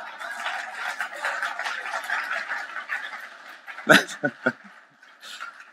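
Audience laughing, fading out about four seconds in, then a few short, loud chuckles close to the microphone.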